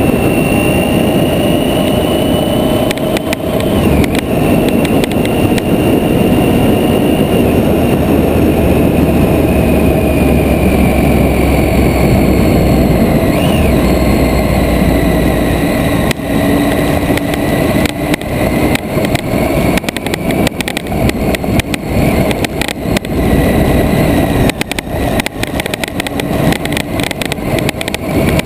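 Triumph Tiger 800 XCa's three-cylinder engine running while riding, its pitch drifting slowly, under heavy wind and tyre noise. From about halfway on, a rapid scatter of clicks and knocks from the tyres on a loose gravel surface joins in.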